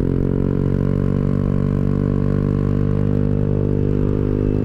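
Rusi Rapid 150 scooter's single-cylinder engine running through a full-system aftermarket exhaust with a resonator and no silencer insert, held at steady revs while riding. Its tone is full and bassy.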